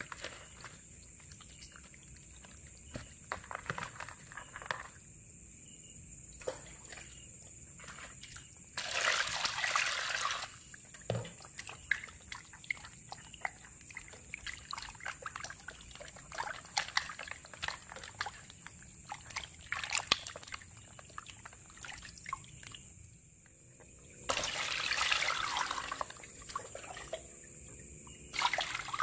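Hands rubbing and rinsing raw catfish in a plastic basin of water: wet squelching, sloshing and splashing, with two loud rushes of poured water, about nine seconds in and again around twenty-four seconds.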